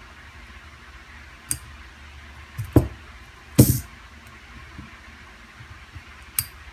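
Piston ring pliers and a piston ring being handled as the ring is spread onto a piston and the pliers set down: a few sharp metallic clicks and two louder knocks a little under halfway through, the second the loudest. A steady low hum runs underneath.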